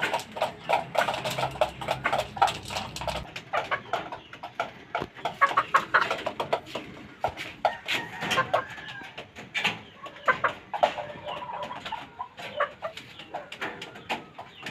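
Caged gamefowl chickens clucking, many short calls in quick succession.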